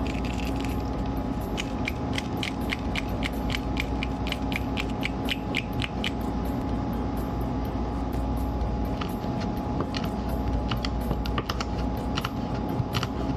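Dry crackling clicks as a dried red chili pod is squeezed and broken open and its seeds shaken out onto a wooden cutting board, about three to four clicks a second for the first half. In the last few seconds a kitchen knife taps on the board, slicing the pod into thin rings, over a steady low hum.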